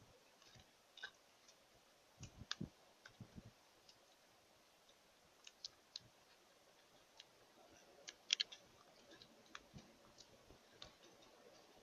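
Faint, scattered sharp clicks and taps at irregular intervals over near-quiet room tone, with a short cluster of louder clicks about eight seconds in and a few soft low thumps early on.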